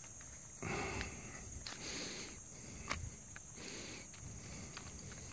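Insects chirring steadily in a high, pulsing drone, with soft rustling handling sounds now and then and one sharp click about three seconds in.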